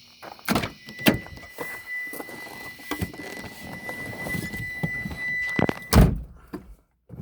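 Mitsubishi 3000GT car door being handled, then shut with a heavy thunk about six seconds in. Before that, a few knocks, and a steady high warning tone from the car that sounds from about a second in and stops as the door closes.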